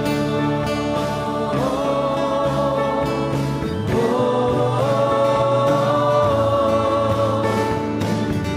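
A choir singing a slow hymn in long held notes, in two phrases that each begin with a rising note, over steady low accompaniment.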